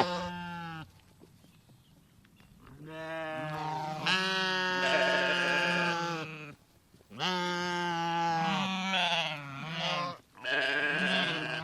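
Sheep baaing: a series of long, wavering bleats separated by short pauses.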